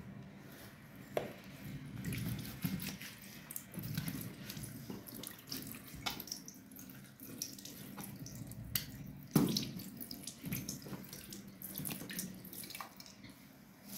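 Tap water running into a sink as hands are washed, splashing unevenly, with scattered small clicks and one sharper knock about nine seconds in.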